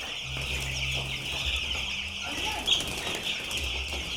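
A flock of young chickens peeping continuously in a dense high-pitched chorus, over a low steady hum, with one sharper louder sound near the middle.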